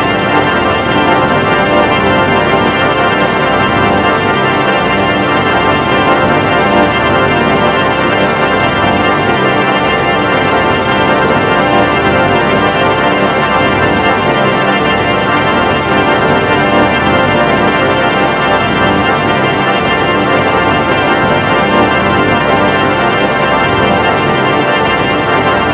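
A loud, steady electronic drone of many held tones, unchanging throughout, like a sustained organ chord.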